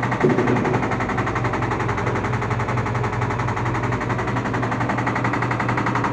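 LG washing machine on its spin cycle with a loud, fast, steady rattling. The owner traces the noise to the drum's balancing ring.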